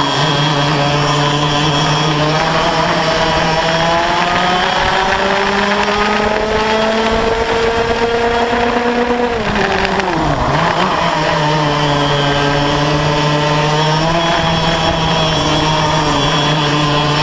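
Yamaha KT100 two-stroke kart engines racing at full throttle. The pitch climbs steadily for several seconds, drops sharply about ten seconds in as the revs fall, then climbs again and holds.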